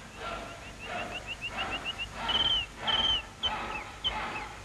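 Woodland birds chirping in quick runs of short notes, then longer warbling whistles, over a handsaw cutting wood in repeated strokes about every half-second.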